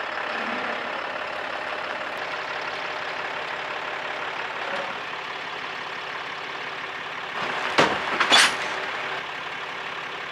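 Pickup truck engine running as the truck backs under a fifth-wheel trailer, with two sharp metal clanks in quick succession near the end as the kingpin goes into the hitch and it couples.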